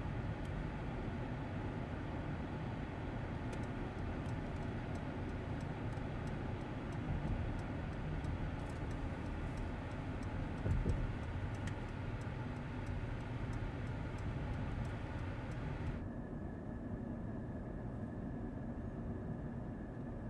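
In-cabin sound of a Mercedes-Benz GLS 580 SUV driving at road speed: a steady low rumble of road and drivetrain noise with a few faint ticks. About four seconds before the end, the higher hiss cuts off suddenly, leaving the low rumble and a faint steady tone.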